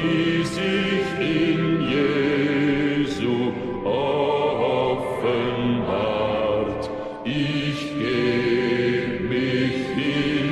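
Slow music sung by several voices in long held notes, in phrases with short breaks about four and seven seconds in.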